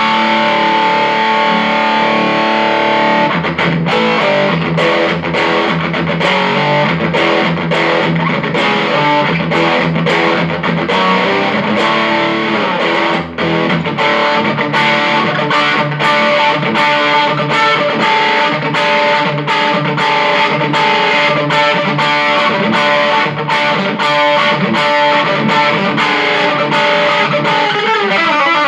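Electric guitar played through a Mesa Boogie Studio .22+ amplifier, a run of picked notes and held chords at a steady level. This is a test after a repair for sound that cut out at random, and the tone here holds without dropping out. Near the end a note slides down in pitch.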